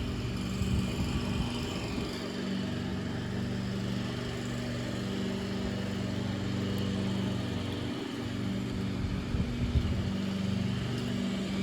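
An engine or motor drones steadily in the background, with a few light knocks near the end.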